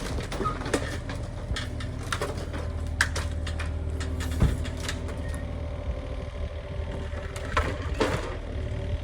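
A machine's engine running steadily while cabin timbers crack and crunch, with many sharp snaps and knocks of breaking wood and debris.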